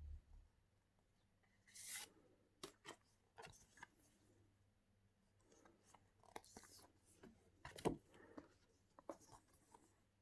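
Faint, scattered rustling and light tapping of photo cards and paper being handled and turned over, with one sharper tap about eight seconds in.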